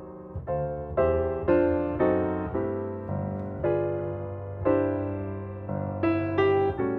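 Background piano music: gentle single notes and chords, each struck and left to fade before the next.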